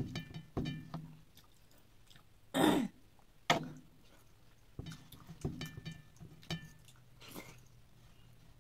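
Mouth sounds of someone eating soft khichdi with her fingers: scattered wet lip smacks and chewing clicks. A short throat clearing about two and a half seconds in is the loudest sound, followed by a sharp smack a second later.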